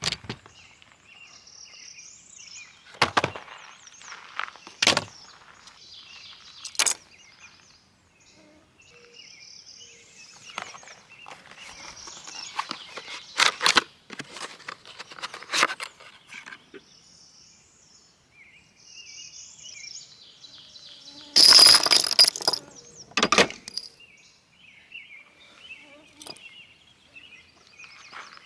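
Scattered knocks and clicks from gear being handled and set up, with a louder clatter about twenty-one seconds in. Birds chirp and insects buzz faintly between them.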